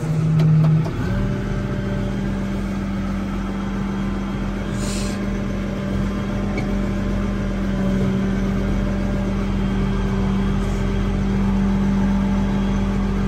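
Case 2290 tractor's six-cylinder turbo diesel starting up: it catches with a step up in pitch about a second in, then settles into a steady idle.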